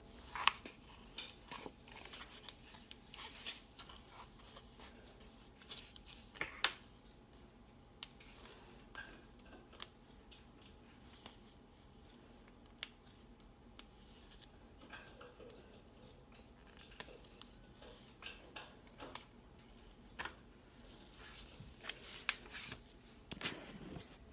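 Faint scattered clicks and short rustles of handling noise as the phone camera is picked up and moved about.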